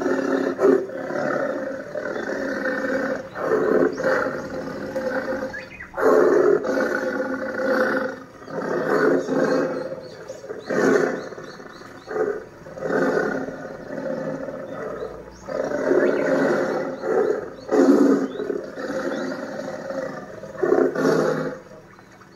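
Tiger roars and growls laid on as a sound effect, coming again and again, each call a second or two long with short breaks between.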